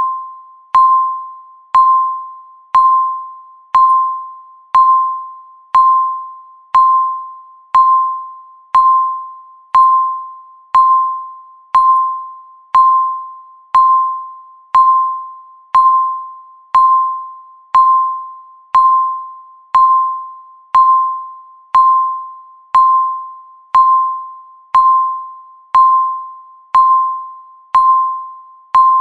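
Countdown timer beeping once a second: a single pitched electronic beep with a sharp start that fades away before the next, repeating steadily as the seconds tick down.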